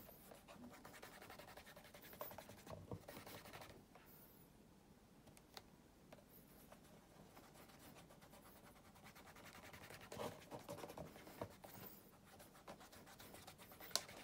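Fingertips rubbing shoe cream into the leather toe of a black cap-toe oxford: faint, soft rubbing in repeated short strokes. The rubbing is a little stronger about two seconds in and again near the end.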